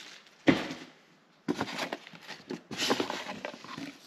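Parts and packaging being handled while a winch kit is unboxed: a single knock about half a second in, then irregular rustling and clatter of packing material and parts.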